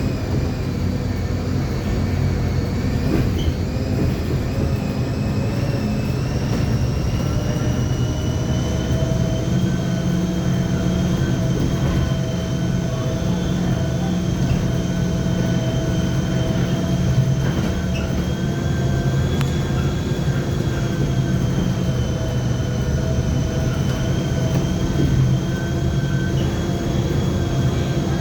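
Rear differential of a Mercedes-Benz OF-1724L city bus whining while the bus drives, heard inside the cabin over the engine and road rumble. The whine is a high tone whose pitch creeps slowly upward and then holds steady, the noisy differential ('roncando') the bus is known for.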